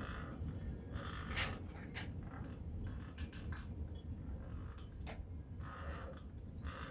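Scattered clicks, taps and rustling from hand work with tools and materials, over a steady low rumble.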